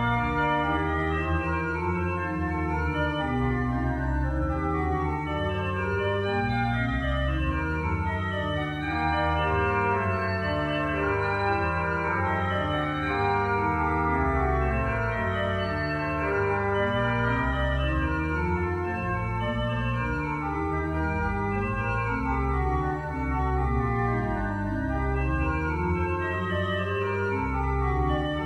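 Three-manual pipe organ of 33 stops playing a chorale prelude, the chorale melody carried in the pedal as slow, held low notes beneath quicker-moving manual lines.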